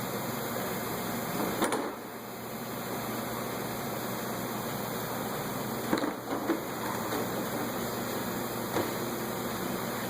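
Steady background hum with a few short clicks and knocks of hand work on a car's front bumper area: one about two seconds in, a quick cluster past the middle, and one near the end.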